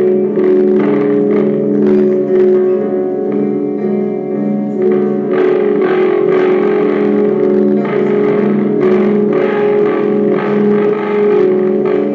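Live psychedelic band music: a steady drone of held low notes, with a denser, effects-laden layer coming in over it about five seconds in.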